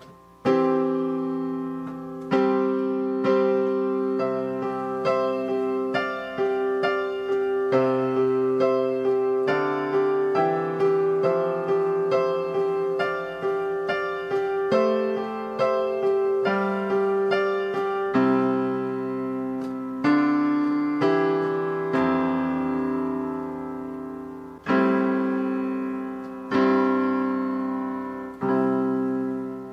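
Solo piano music: a gentle melody of struck notes over held chords. It slows toward the end into a few long chords that die away.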